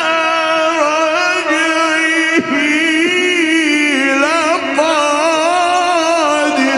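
A man reciting the Quran in melodic tajwid, drawing one long phrase out on high, held notes with wavering ornamental turns, which ends near the end.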